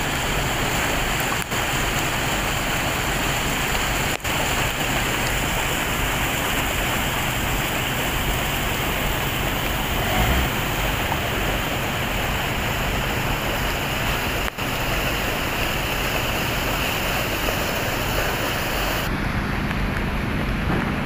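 Steady heavy rain with rushing runoff water, a loud even hiss. The sound drops out for an instant three times, and near the end it turns duller.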